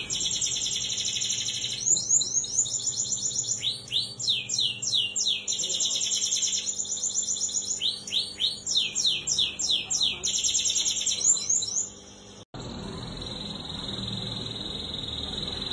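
Domestic canary singing: phrases of rapid, high-pitched rolling trills and runs of quickly falling notes, separated by short pauses. About twelve seconds in the song cuts off suddenly, and fainter song follows.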